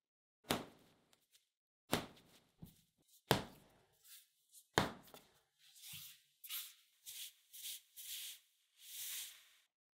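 Soft milk-bread dough slapped down hard onto a bamboo board four times, about a second and a half apart, as it is kneaded by hand. In the second half come softer, quicker rubbing strokes of hands rounding the dough into a smooth ball on the board.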